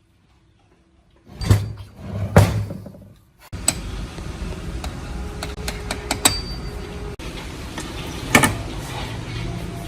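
Two loud knocks, then a machine starts up about three and a half seconds in and keeps running steadily with a clattering rattle.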